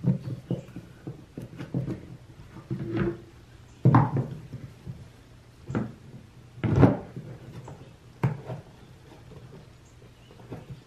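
Handling noise from a chainsaw's plastic handle and fuel tank housing: irregular knocks and clunks against the workbench as rubber bushings are pressed into it, the loudest about four seconds in and again near seven seconds.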